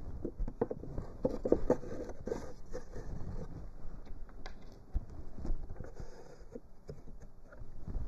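Wooden slats and frame of a cypress bottom board being handled and pushed together on a workbench: irregular light knocks and clicks, busiest in the first couple of seconds.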